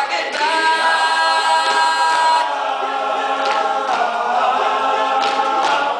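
Male a cappella group singing in close harmony, holding a sustained chord, with the notes changing about four seconds in.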